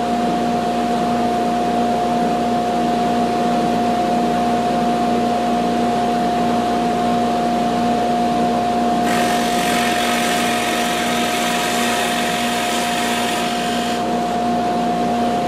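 Dust collector and drill press motor running with a steady hum. About nine seconds in, a 35 mm bit bores a hinge cup hole into a knotty pine cabinet door for about five seconds, adding a cutting hiss.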